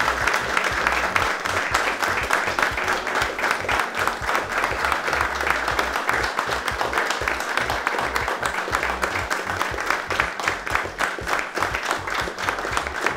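A group of people applauding steadily, a dense patter of hand claps; in the later part the claps stand out more sharply.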